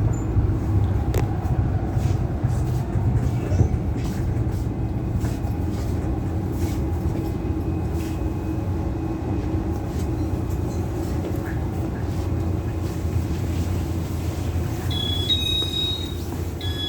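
Taiwan Railways EMU600 electric multiple unit running, with the motor car's noise leaking through a PA microphone left switched on and playing over the trailer car's speakers, above a steady low rumble and scattered sharp rail clicks. Near the end, short high beeps sound twice.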